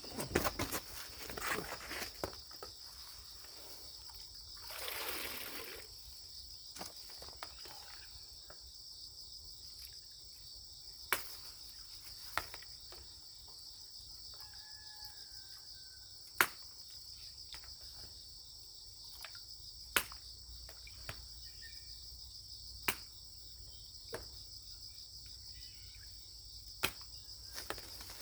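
Insects chirring steadily in a high, even drone, broken by a few sharp clicks every few seconds and a brief rush of noise about five seconds in.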